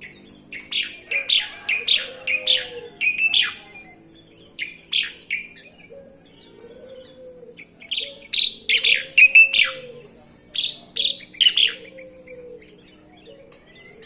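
Sooty-headed bulbul (kutilang) calling in four bursts of quick, bright chirps with short pauses between them. A faint low arching note repeats about every two seconds underneath.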